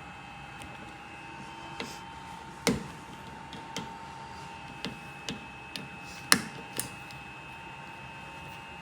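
A series of scattered sharp clicks and knocks, about eight in all, the loudest a little before the middle and about two thirds of the way in: plastic trunk trim and carpet panels being handled and pressed back into place. A faint steady high whine runs underneath.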